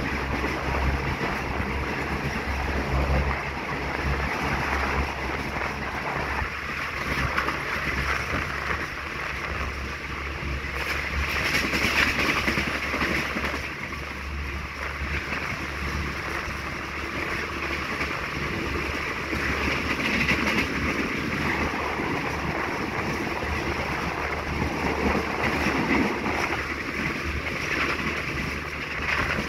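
Steady rush of wind and rumble of wheels on the rails, heard from the open door of a passenger coach of an express train running at speed.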